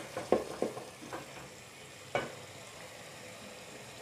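Wooden spoon scraping and knocking against the side of an aluminium pot as potatoes are stirred through frying masala, over a low, steady sizzle. The strokes come several times in the first second and once more a little past two seconds.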